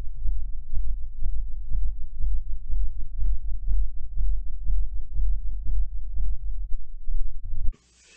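A loud, low droning hum with faint steady higher tones and irregular crackling clicks throughout, cutting off suddenly near the end.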